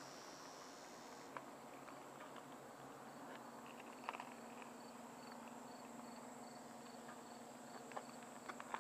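Near quiet, with an insect chirping faintly in short, evenly spaced chirps about three a second, and a few soft clicks and knocks.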